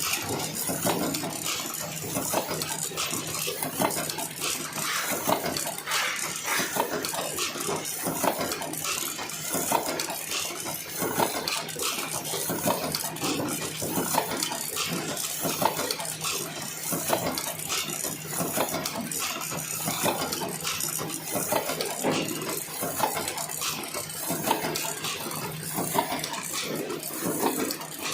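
Automatic cartoning machine running: a continuous rapid clatter of small mechanical clicks and knocks over a steady low hum.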